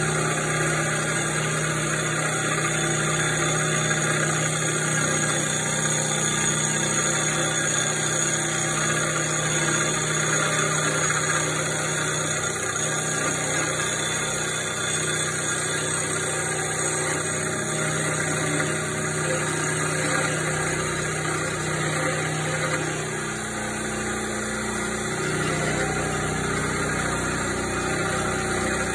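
Old drill press running, its spinning cutter machining the face of a cast-iron Fairbanks Morse engine cylinder head: a steady motor hum over a noisy cutting rasp. The hum shifts a little higher about three-quarters of the way through.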